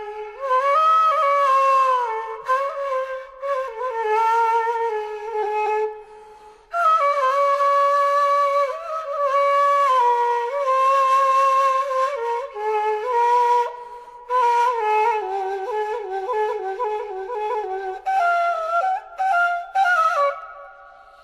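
Background music: a solo flute playing a slow melody in long phrases, breaking off briefly about six seconds in.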